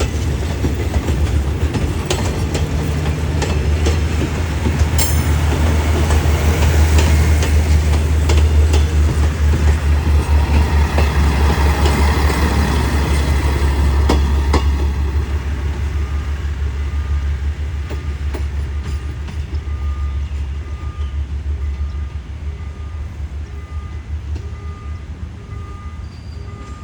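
A train passing on the line: a heavy low rumble with wheels clattering over the rail joints, swelling to its loudest in the middle and then fading away. In the second half a faint pulsing tone repeats about once a second.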